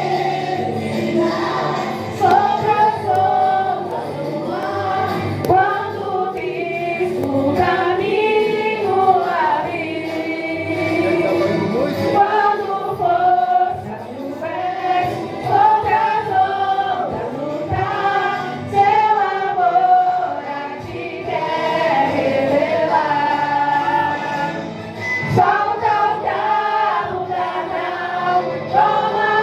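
A youth choir singing a gospel song together.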